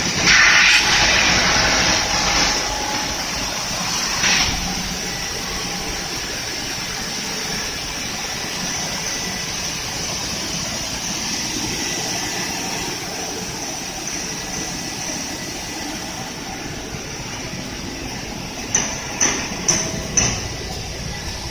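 Three-head wide belt sander running with a steady machine rush. It is louder for the first couple of seconds, swells briefly again a little later, and near the end there are a few short sharp knocks.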